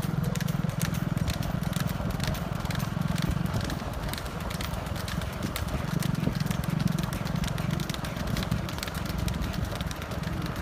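Hooves of a pair of white bullocks trotting on asphalt: a rapid, uneven clatter of clip-clops over a steady low rumble.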